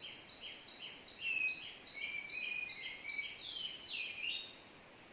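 Kapas tembak bulbul calling in a rapid, regular series of short chirping notes, about two to three a second, with a few varied lower notes mixed in; singing vigorously, the bird stops shortly before the end.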